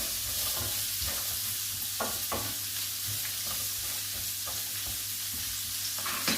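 Vegetables sizzling steadily in a hot frying pan, glazing in the fat, with a few short scrapes of a utensil stirring them.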